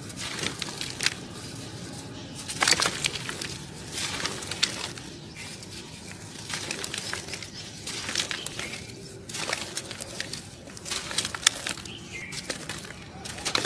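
Dry, dusty chunks of crumbly floor material being crushed and crumbled by hand, with irregular crunches and crackles and fine grit falling into a metal bowl.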